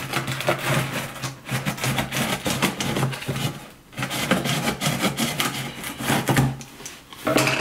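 Scissors scraping and cutting through packing tape and cardboard on a shipping box, a run of rasping strokes with a short pause about four seconds in.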